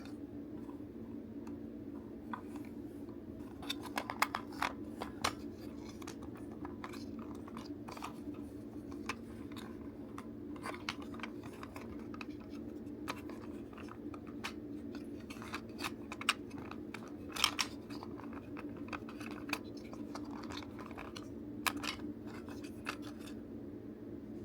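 Many small, sharp clicks and taps of hard parts being handled and worked apart, in irregular clusters with the loudest around four seconds in and again past the middle, over a steady low hum.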